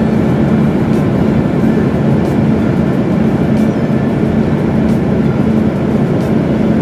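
City bus engine running with a steady low hum, heard from inside the passenger cabin as the bus creeps along in traffic.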